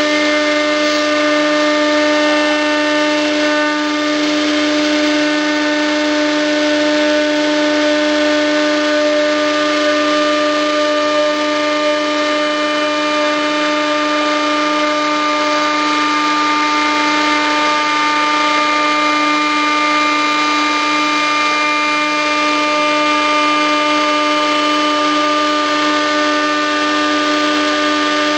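A power tool motor running at one steady speed: a constant whine over a hiss.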